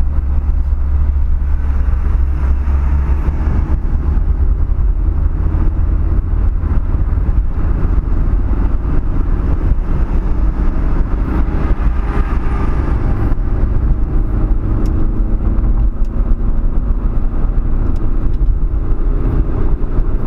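Steady road and engine noise of a car driving at highway speed, heard from inside the cabin: a continuous deep rumble.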